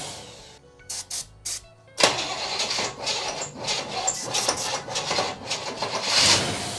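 1965 Chevrolet El Camino engine cranking on the starter for about five seconds without catching, after a few short clicks; it is not getting fuel.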